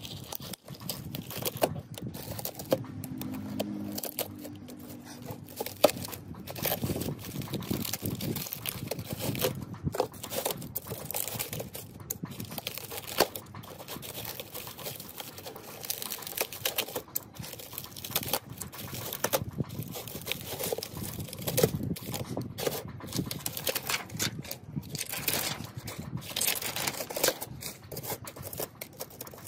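Hands working on old laptop parts: irregular scraping, crinkling and light clicks.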